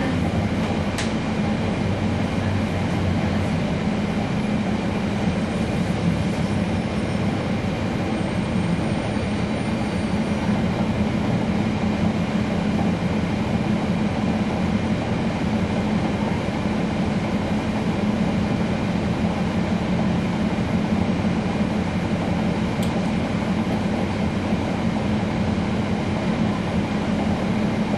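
Cummins ISL9 diesel engine of a 2012 NABI 40-SFW transit bus running steadily, heard from inside the bus as a constant low drone under road noise.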